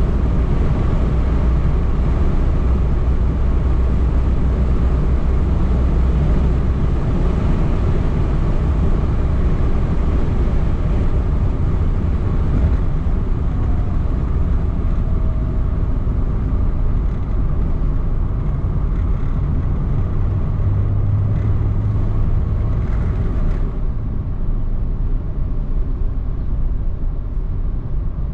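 Car driving on an open road heard from inside the cabin: steady engine and tyre rumble with wind and road hiss. The higher hiss eases off near the end.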